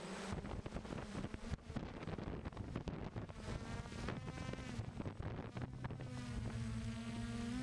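DJI F550 hexacopter's electric motors and propellers buzzing, heard from the camera on board, with wind buffeting the microphone. About halfway through, the buzz sharpens into a clearer whine whose pitch shifts slightly up and down.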